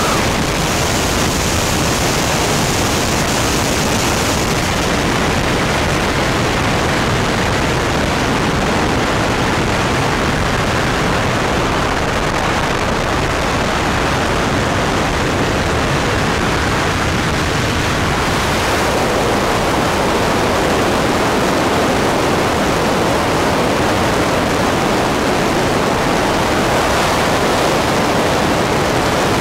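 SeaRey amphibian's pusher engine and propeller running steadily in flight, mixed with rushing air, heard from inside the cockpit as an even, loud roar.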